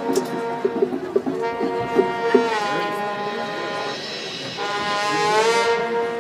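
Marching band playing: the brass section holds loud sustained chords that bend in pitch, over rhythmic percussion taps in the first few seconds, swelling louder near the end.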